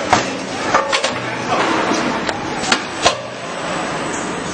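Welding-wire coil packing line with a sleeve shrink wrapping machine running: a steady mechanical noise broken by about half a dozen sharp clacks and knocks at irregular intervals.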